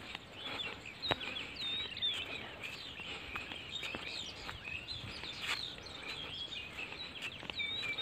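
Many small birds chirping and twittering without pause, in quick high gliding notes, with a few faint clicks scattered among them.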